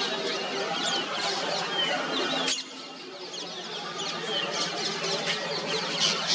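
A busy chorus of many small birds chirping and twittering, short high squeaky calls overlapping one another. The sound drops abruptly about two and a half seconds in, then builds back up.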